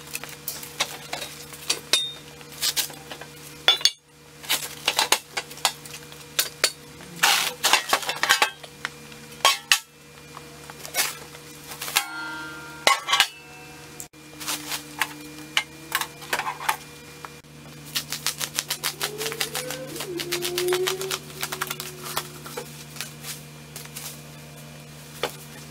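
Plastic stretch wrap crinkling and tearing as it is pulled off steel car-lift parts, with scattered metal clinks and knocks as the pieces are handled.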